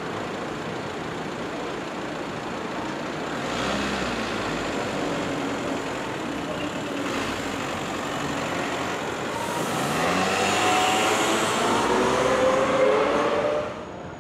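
Articulated electric tram passing close by on street track, wheels running on the rails amid road traffic. It grows loudest in the last few seconds, with a whine that rises in pitch, then cuts off suddenly.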